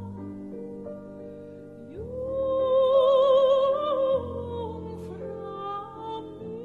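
Slow background music: a melody with wide vibrato over long held chords. About two seconds in, the melody slides up into a long held note, the loudest part, which ends a little after four seconds.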